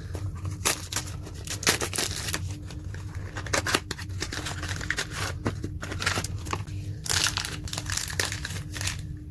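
Crinkling and tearing of plastic and foil packaging being opened by hand, in many short irregular crackles.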